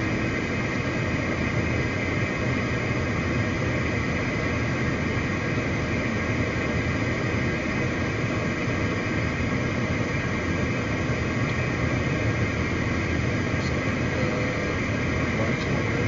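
Steady cockpit noise of a CRJ 700 regional jet on approach: an even rush of noise with a constant hum of several tones underneath, unchanging throughout.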